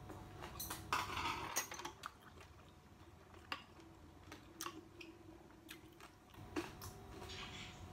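A person chewing a mouthful of shrimp and rice close to the microphone, with wet mouth noises and a cluster of crackly sounds about a second in. Scattered light clicks of a spoon against the glass rice bowl and soup dish follow.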